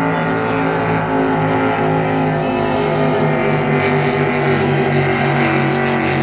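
Racing powerboat engine running flat out as the boat passes at speed, a loud steady engine note that wavers slightly in pitch.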